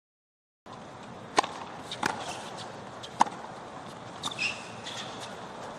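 Tennis rally on a hard court, starting after a short silence: sharp racquet strikes on the ball, the loudest about a second and a half and three seconds in, over a low crowd murmur.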